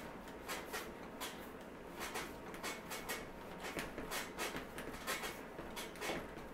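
Bread dough being kneaded by hand on a stainless steel counter: irregular soft pats and pushes of the dough against the steel, about two a second.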